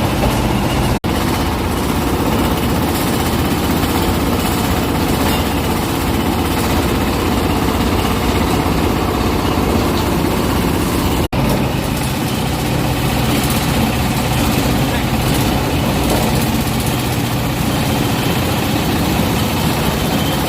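Coconut husk fibre decorticator (coir-stripping machine) running with a steady, dense mechanical noise. The sound cuts out for an instant twice, about a second in and again about eleven seconds in. After the second break a steady low hum runs under the noise.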